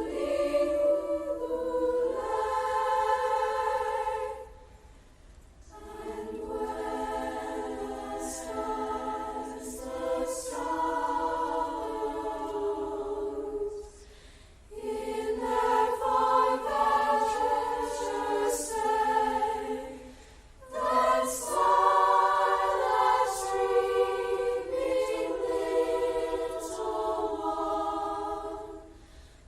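A choir singing in long held phrases, with short breaks between phrases about five, fifteen and twenty-one seconds in.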